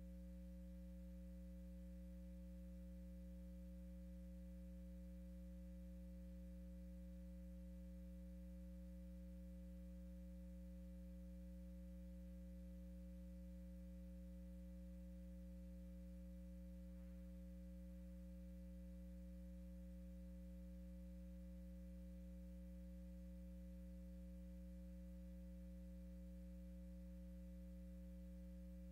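Faint, steady electrical hum, mains hum with its overtones on the audio feed, unchanging throughout with no other sound over it.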